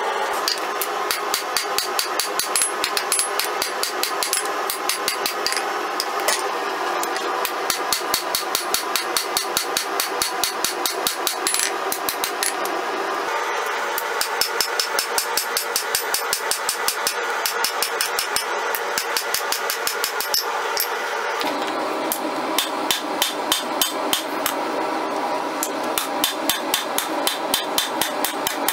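Hand hammer beating red-hot 5160 leaf-spring steel on a Cavalry anvil, hot-forging a Bowie blade. The blows fall in a quick, even rhythm of several a second, each with a bright metallic ring from the anvil.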